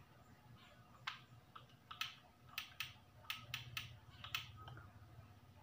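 Sharp, irregular clicks of a PCP airgun's parts being handled and worked by hand, about nine in all over three seconds, over a faint steady low hum.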